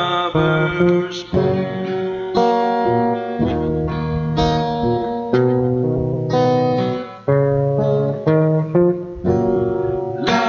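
Acoustic guitar strumming and ringing out chords in a slow ballad, the chord struck again about every second, between sung lines. A sung note fades out at the very start.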